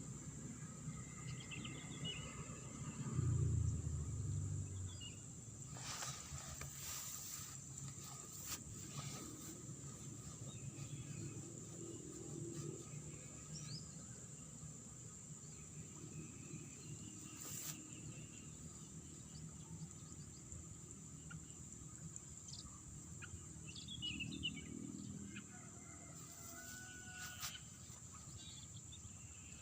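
Rice-field ambience: a steady high insect drone with scattered short bird chirps over a low rushing background, and a brief louder low rumble about three seconds in.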